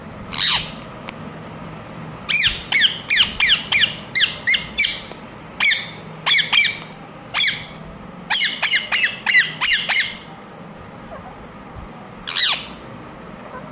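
Ringneck parrot calling, short sharp squawks that each slide down in pitch. They come in quick runs of several a second, with pauses between, and there is one more call near the end.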